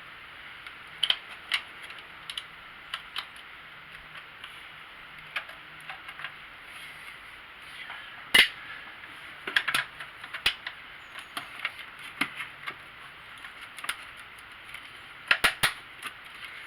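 Sharp metal clicks and knocks at irregular intervals as a car battery's hold-down bracket is worked into place and pushed to catch. The loudest snap comes about eight seconds in, and a quick run of clicks comes near the end.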